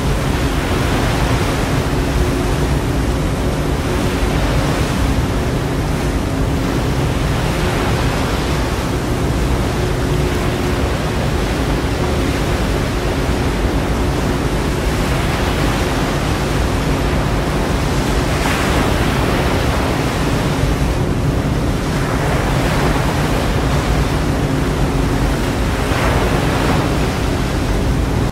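SR.N6 hovercraft running: a loud, steady roar with a constant hum under it, swelling several times as the craft comes ashore.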